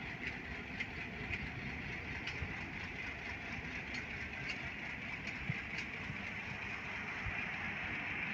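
Pakistan Railways HGMU-30 diesel-electric locomotive's engine running steadily as the train rolls slowly past at low speed. Faint clicks repeat about twice a second over the engine.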